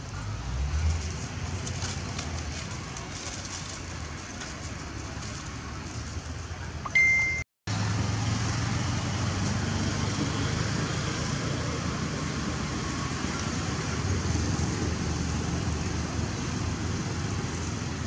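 Steady outdoor background noise with a low rumble, and a brief high-pitched chirp about seven seconds in, just before the sound cuts out for a moment.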